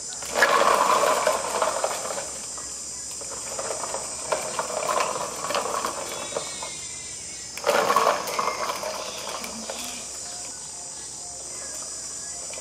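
Hard plastic wheels of a toy dump truck rolling over concrete paving as it is pulled along by a string, a rough rushing noise that is loudest about half a second in and again near eight seconds.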